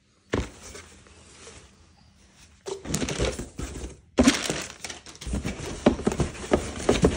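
Packaging being handled in a cardboard shipping box: a thump near the start, then crinkling of plastic wrap and tissue paper and rustling cardboard, with several sharp taps and knocks.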